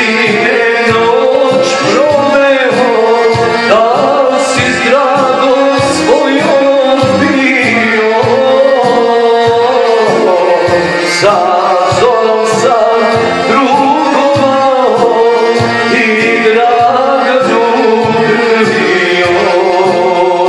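A man singing through a handheld microphone over amplified backing music with a steady drum beat.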